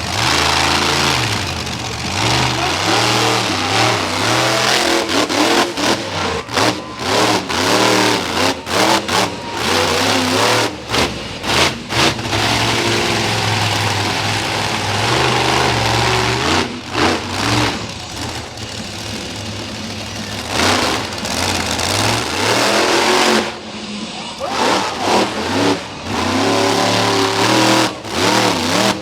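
Monster truck engine revving hard over and over, the pitch rising and falling as the throttle is pumped and cut, with many short sharp breaks in the sound.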